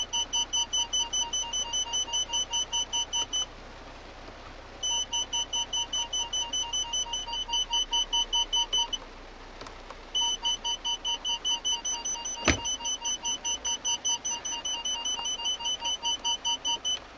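Parking-sensor warning beeps: a fast, even pulsing beep at about four beeps a second, in three runs with short breaks between them. The beeping comes both from the car's original parking-sensor buzzer and through the aftermarket Bosion BX-440 head unit at once, a doubled warning that the owner could not get rid of. A single sharp click sounds about twelve seconds in.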